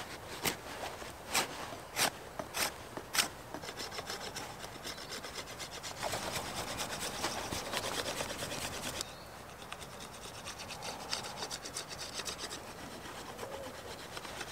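Knife blade whittling a wooden stick, shaving off thin strips of wood. A few separate scraping strokes come about a second apart at first, then faster, closer strokes follow.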